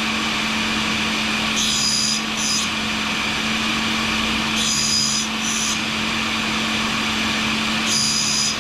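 Grinder running steadily with a shop vacuum while a carbide scraper is ground; three short high-pitched rasping passes of the carbide against the wheel come about three seconds apart over the steady motor hum.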